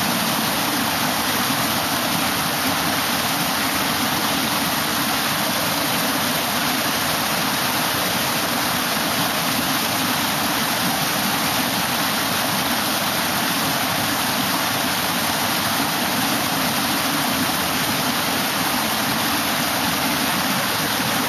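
Water rushing steadily down a concrete fish ladder, spilling over its step weirs in a continuous, even rush.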